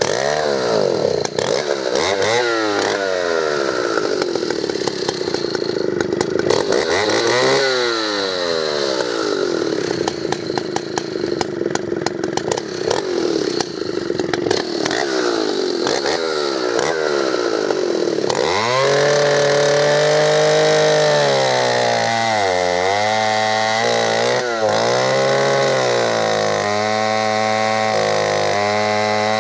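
Solo 642 vintage 106 cc two-stroke chainsaw running, revved up and down several times with the chain free. From about 18 seconds in it is held at high revs cutting through a log, its pitch sagging and recovering under load.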